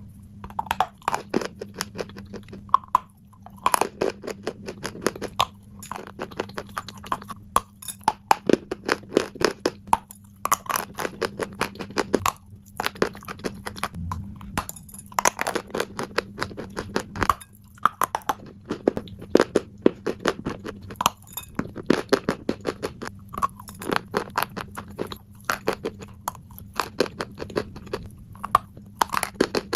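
Close-miked chalk being bitten and chewed: clusters of sharp, quick crunches every second or two, separated by short pauses, over a steady low hum.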